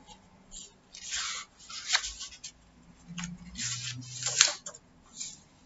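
Sheets of paper being handled and shuffled, rustling in several short, scratchy bursts.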